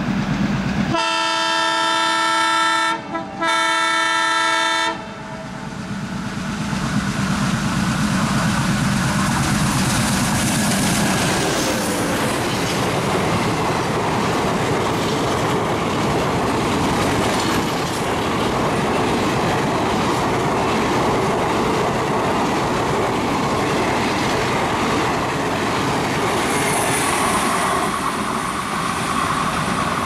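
ALCO WDM-3D diesel locomotive sounding its horn in two long blasts with a brief break between, from about one to five seconds in, over its chugging engine. After that comes the engine's chugging and the clatter of the express coaches running past.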